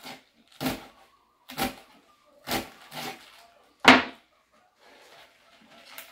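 A sharp kitchen knife slicing rolled collard green leaves on a plastic cutting board, heard as separate knocks of the blade on the board about a second apart. A louder clack comes about four seconds in as the knife is laid down.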